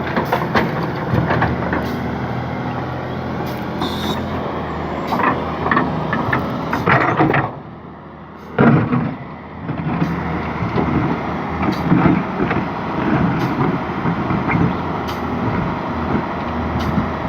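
Case excavator's diesel engine running under load while the bucket digs, with repeated metal clanks and knocks. The sound briefly drops away about halfway through and returns with a sharp knock.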